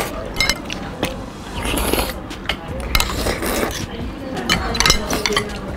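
Metal forks and spoons clinking and scraping on plates while eating noodles, many small irregular clinks.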